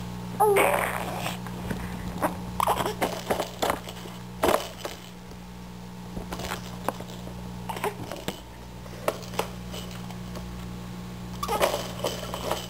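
A baby's short vocal sounds: a brief squeal that bends in pitch about half a second in and a little babbling near the end, with scattered light clicks and knocks, over a steady low hum.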